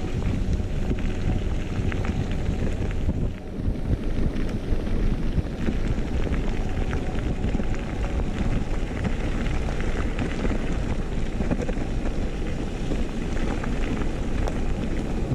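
Mountain bike tyres rolling fast over a gravel forest track, a steady rumble full of small crackles and rattles from the stones, with wind buffeting the handlebar camera's microphone. The noise dips briefly about three and a half seconds in.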